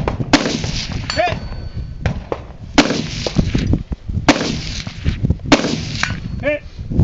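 A string of gunshots about a second or two apart, some followed by a short metallic ringing ping as a steel target is hit.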